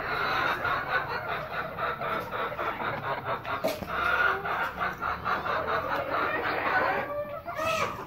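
A flock of chickens clucking, many short calls overlapping in a busy chorus that thins out near the end.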